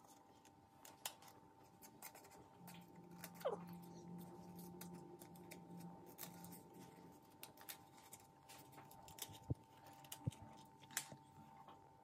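Small children's scissors snipping through a folded circle of coloured paper: quiet, irregular snips.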